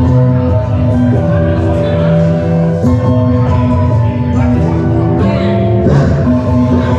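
A hip-hop beat playing loud over a PA: heavy bass, sustained melodic notes changing every second or so, and a sampled vocal.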